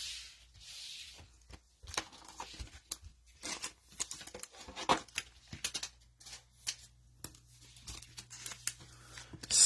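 Cellophane wrapper of a trading-card pack being torn open and crinkled, with cards being handled: a hiss at first, then scattered short crackles and clicks, the loudest just before the end.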